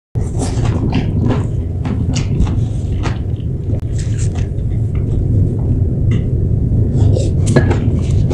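Close-miked eating sounds: chewing and slurping of stir-fried noodles and vegetables, with many short wet mouth clicks over a loud, steady low rumble.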